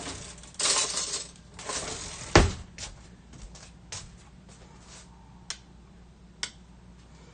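Kitchen handling sounds: a couple of brief shuffling noises, a sharp knock about two and a half seconds in, then a few light clinks of a spoon against a soup bowl as the soup is stirred.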